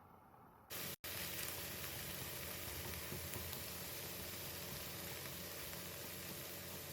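Food sizzling and frying in a pan: a steady hiss that starts abruptly less than a second in.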